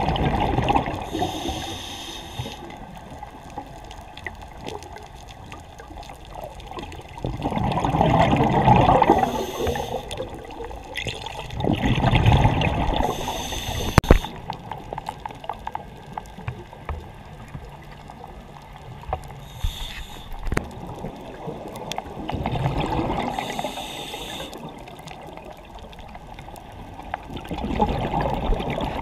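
Water lapping and gurgling against a sailboat's hull, swelling and fading every few seconds, with one sharp knock about halfway through.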